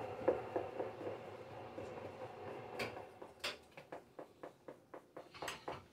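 Kitchen utensil and plate handling while food is served from the stove: light clicks and knocks, turning into a quick run of small taps in the second half, over a faint steady hum.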